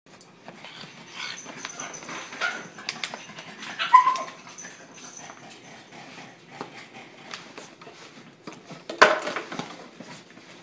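Pug puppy shifting about inside a nylon tennis racquet bag, rustling and scratching the bag and towel, with a brief high whine about four seconds in and a louder burst about nine seconds in.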